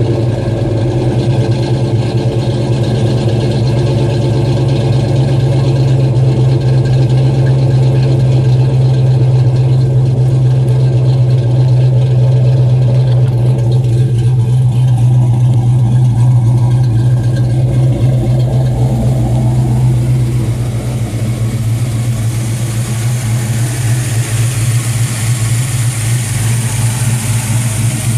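Ford 302 (5.0 L) V8 with a Comp Cams XE264HR cam, swapped into a 1999 V6 Mustang, idling steadily through Ford Racing shorty headers, an off-road H-pipe and a Flowmaster cat-back exhaust, heard at the tailpipes. About twenty seconds in, the deep exhaust note drops a little and more high hiss comes in as the engine bay is approached.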